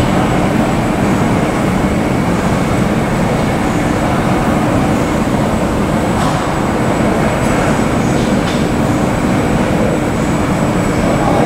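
Jet engines of a British Airways Airbus narrow-body airliner running at taxi power as it rolls past, a loud, steady rumble with a steady hum in it.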